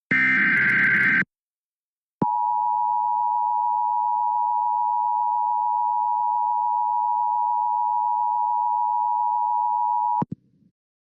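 Emergency Alert System tones. First comes the last of the screeching data-header bursts, lasting about a second. After a short pause, the steady two-tone attention signal (853 and 960 Hz) is held for about eight seconds and cuts off abruptly, announcing a tornado warning.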